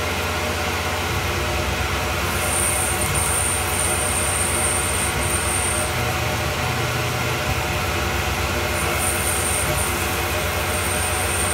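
Tormach PCNC 1100 CNC mill drilling a tap-drill hole under flood coolant: the spindle and the drill cutting run steadily under the hiss of the coolant spray. A high whine comes in twice, from about two and a half seconds to six seconds in, and again from about nine to eleven seconds in.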